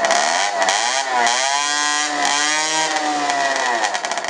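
Piaggio Zip moped engine revved through a new aftermarket sports exhaust, loud. The throttle is blipped twice, then opened up to a high rising pitch about two seconds in, held there, and let back down toward idle near the end.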